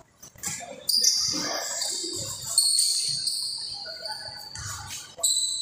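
Basketball shoes squeaking on the court floor: a run of high, overlapping squeals that starts suddenly about a second in, with low thuds of the ball bouncing underneath.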